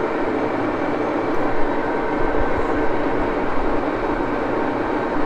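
Axelson engine lathe running under power, giving a steady hum of several fixed tones from its gears and motor.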